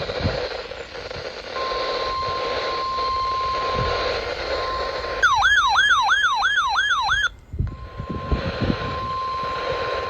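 Weather radio warning alarm tone: a steady single-pitch tone over radio hiss. About five seconds in, a louder electronic siren breaks in for about two seconds, sweeping up and down three to four times a second. It cuts off abruptly, and the steady tone then resumes.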